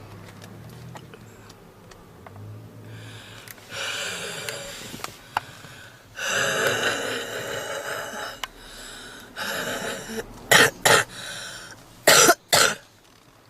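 A woman's heavy smoker's cough. A few drawn-out, hoarse hacking sounds come in the middle, then four sharp, loud coughs in two quick pairs near the end. The uploader presents the cough as typical of smoker's bronchitis.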